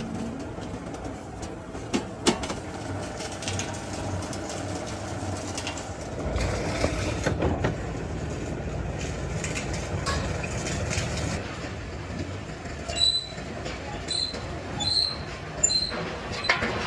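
Metal workshop noise: a steady mechanical rumble with a couple of sharp metal clanks, and a few short high squeals near the end.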